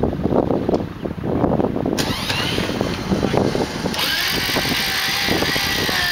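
A winch hauling under load as an overturned off-road 4x4 is pulled back onto its wheels. About two seconds in, a motor whine starts and rises in pitch, then from about four seconds it holds steady at a high pitch, over rough vehicle noise.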